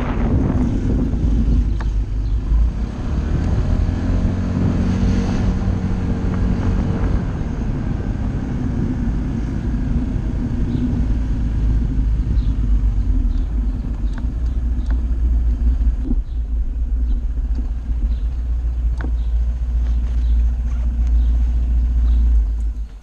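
Honda SH 125i scooter's single-cylinder four-stroke engine running with a steady low rumble while riding, heard from a camera mounted on the scooter. Near the end the scooter stops and the engine sound cuts off suddenly.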